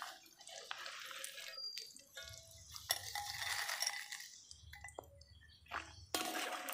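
Wire spider skimmer scooping fried banana chips out of hot coconut oil in an aluminium wok, oil dripping back into the pan, with light clinks of metal and chips as they are lifted out.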